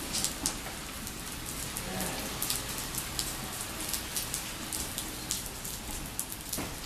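Steady rain falling, an even hiss with many sharp, irregular drop ticks standing out from it.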